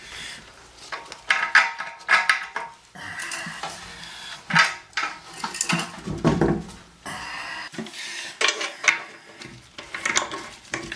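Irregular clinks, clatters and scrapes of tools working on the bolts that hold a toilet tank to its porcelain bowl while the tank is being unbolted.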